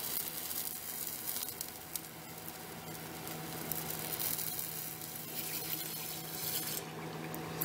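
Hot hand-forged steel cross peen hammer head sizzling as it is swirled in a quench bucket, a steady hiss as the head is quenched to harden it.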